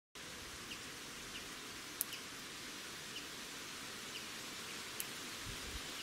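Steady outdoor hiss with faint, short bird chirps every second or so, and two sharp clicks, about two and five seconds in.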